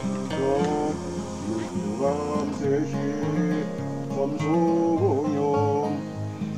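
Background music with plucked guitar and a gliding melody line over it.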